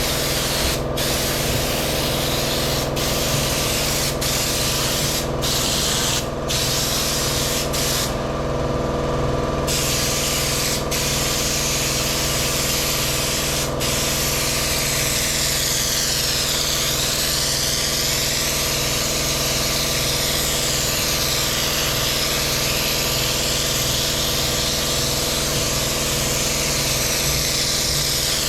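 Raptor Liner bed coating being sprayed from an air-powered spray gun: a continuous hiss that stops briefly several times and pauses for about a second and a half some eight seconds in, over a steady mechanical hum. In the later part the hiss sweeps back and forth in tone.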